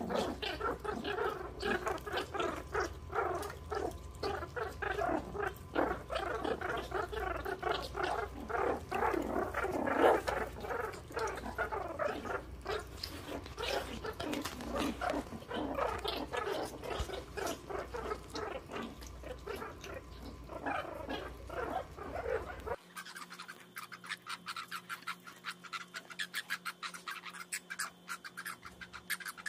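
Meerkat pups growling and squabbling as they feed, a dense, busy run of small animal sounds. About three-quarters of the way in, it turns suddenly thinner, leaving quick sparse clicks.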